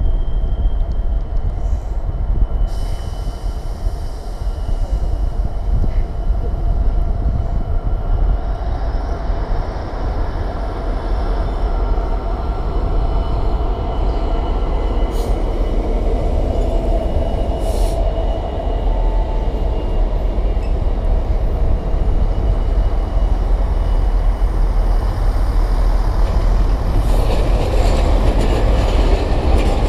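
Freightliner Class 66 diesel locomotive running through the station hauling a long train of hopper wagons. It gives a steady heavy rumble of engine and rolling wheels, with a thin high wheel squeal over it. The locomotive approaches and passes about halfway through, and the wagons are still rolling past near the end.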